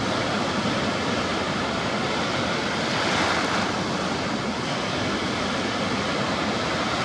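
Rough sea surf: choppy waves breaking and washing in a steady rush, which swells briefly about three seconds in.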